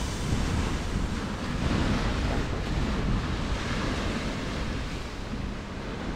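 Small ocean waves washing up onto a sandy beach, a steady surf wash, with wind rumbling on the microphone.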